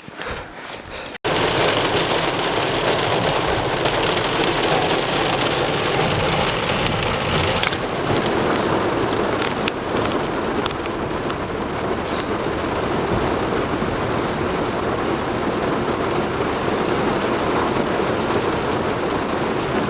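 Steady rushing noise, like heavy rain or water, starting abruptly about a second in and holding even throughout.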